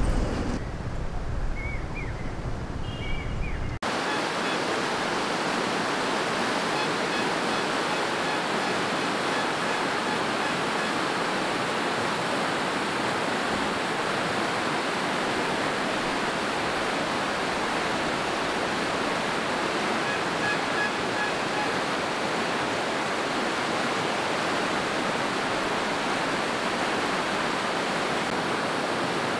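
Water rushing steadily under a small concrete bridge, churning white, with the river running high on released water. The sound comes in abruptly about four seconds in, after a quieter opening with a few faint high chirps.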